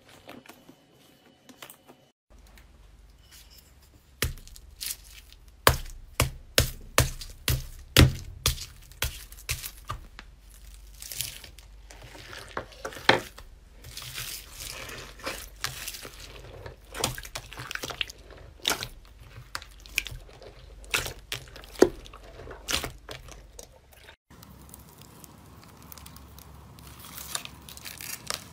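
Hands squeezing and kneading slime packed with foam beads, the beads crackling and popping in quick, irregular clicks. Near the end the clicks give way to a softer rustle.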